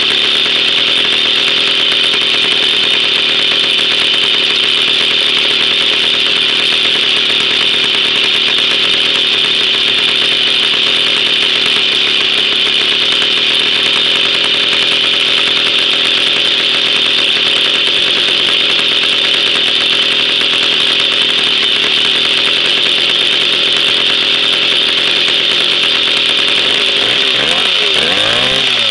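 Jawa 50 type 05 moped's 50 cc two-stroke engine running steadily, loud, on a Polish-made muffler: the freshly rebuilt engine's first run after 20 years standing. Near the end the revs rise and fall a couple of times.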